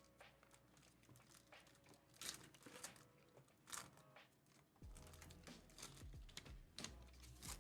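Faint plastic and foil packaging crinkling and tearing as a hobby box of trading-card packs is opened, with scattered crackles and two sharper rips a little over two seconds and nearly four seconds in.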